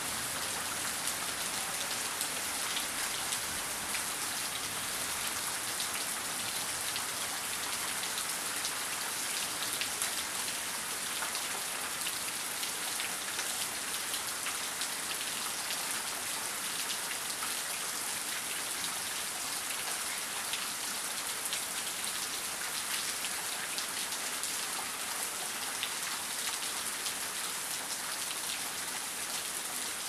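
Steady, dense rainfall: an even hiss made up of countless small drop hits, with no thunder.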